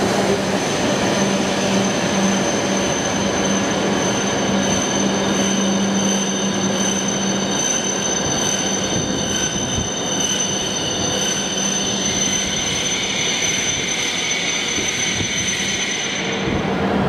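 Hokuriku Shinkansen train moving slowly alongside the platform, a steady rumble of wheels and running gear with a low hum that stops about halfway through.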